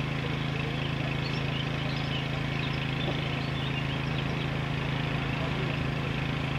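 A steady engine hum with an even, unchanging pitch, with faint short high chirps over it.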